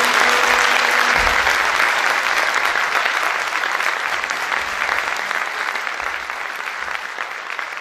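Audience applauding, the clapping slowly fading. The violin's last held note dies away about a second in.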